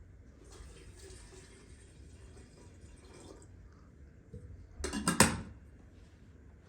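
Water pouring or running for about three seconds, then a short clatter of kitchenware, like a pot or dish being knocked or set down, about five seconds in.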